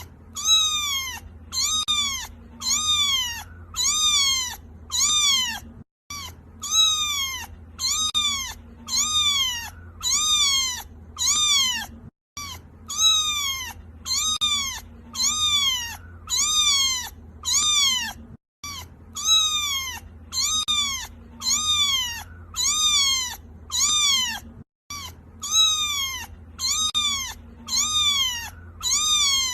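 Kitten crying: a rapid run of high, insistent meows, about one and a half a second, each rising then falling in pitch. The same few-second sequence repeats, broken by a brief silent gap about every six seconds, over a faint low hum.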